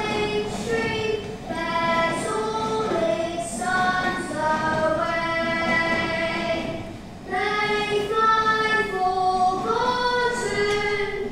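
Two boys singing together in high voices, a slow melody of long held notes, with a short breath-break about seven seconds in.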